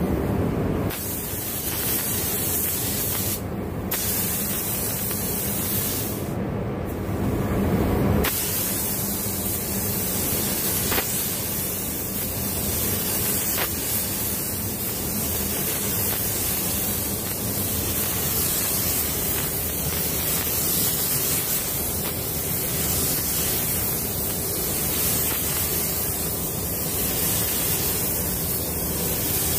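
Copy of a DeVilbiss GTi Pro spray gun spraying clear coat at about 2.7 to 2.8 bar, a steady hiss of atomising air. The hiss cuts out briefly three times in the first eight seconds, between passes.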